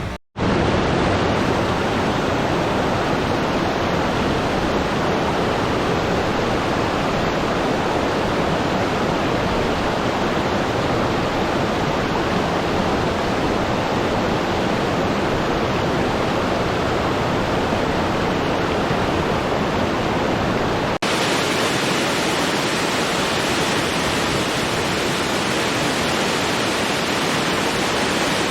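Waterfall rushing steadily, a dense unbroken roar of falling water. It cuts out for a moment just after the start, and about 21 s in it changes abruptly to a thinner, hissier rush with less low rumble.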